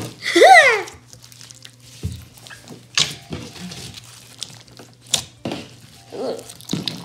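Hands kneading and pulling a large mass of beaded slime, making sticky clicks and squelches, several times. Near the start there is a short high squeal whose pitch rises then falls, the loudest sound here. A low steady hum runs underneath.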